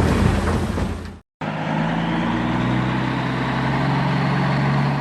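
A loud, noisy heavy-machine sound fades out about a second in. After a brief gap, a construction machine's engine runs steadily with an even low hum.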